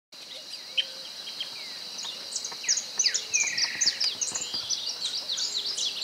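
Several birds chirping with many short, quick notes over a steady high-pitched insect drone, with one buzzy falling call a little past the middle.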